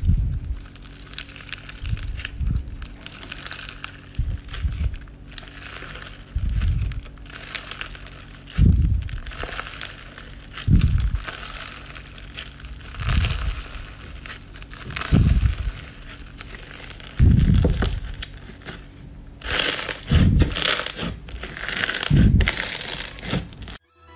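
Clear crunchy slime full of small clear beads being squeezed and stretched by hand, crackling and crunching, with low squishy thuds about every two seconds. The sound cuts off suddenly near the end.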